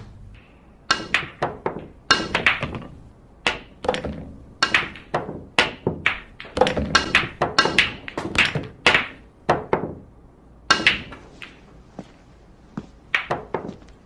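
Pool balls clacking on a billiard table: a cue tip striking the cue ball and balls knocking into one another, many sharp clicks starting about a second in and coming irregularly, several in quick succession.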